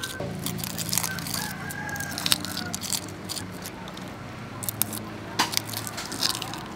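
A rooster crowing, with sharp clicks and crackles of shell being peeled off boiled duck eggs.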